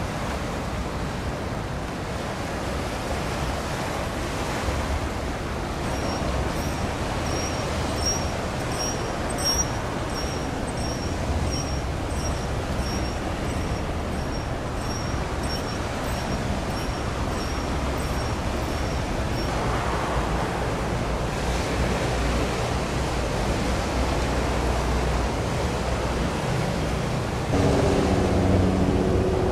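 Steady rushing outdoor noise by open water. Through the middle a short high chirp repeats about once a second. Near the end a louder low, steady hum with several pitched tones comes in.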